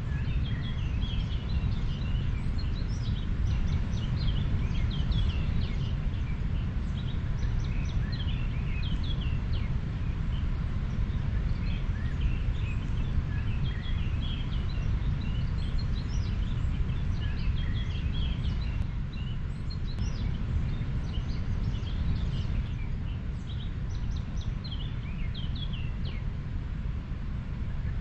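A river running with a steady low rush of water, while many small birds chirp and call throughout in short high notes.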